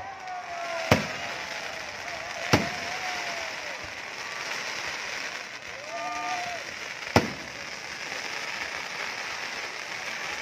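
Fireworks: three sharp bangs of exploding shells, about a second in, two and a half seconds in and about seven seconds in, over a steady noisy, crackling background.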